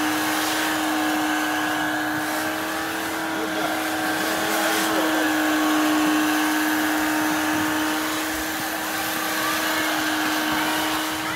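Vacuum cleaner running steadily, an unbroken motor hum with a strong steady tone.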